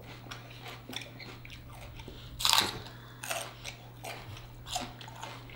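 Raw celery stalks being bitten and chewed up close: a run of crisp crunches and crackles, the loudest bite about two and a half seconds in.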